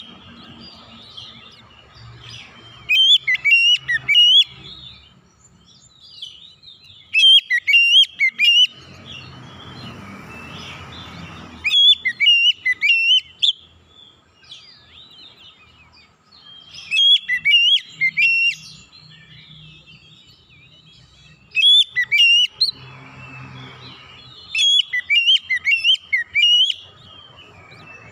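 Oriental magpie-robin giving loud, shrill whistled calls: bursts of quick rising and falling notes every four to five seconds, with softer notes between.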